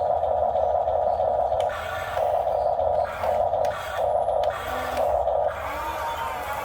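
Radio-controlled model excavator's small electric motors whining in short spurts, on and off about five times, as it works its arm and bucket.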